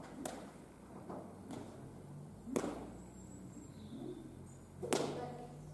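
Three sharp cracks about two seconds apart, the last the loudest, from a lunge whip snapped during groundwork to send a young horse forward.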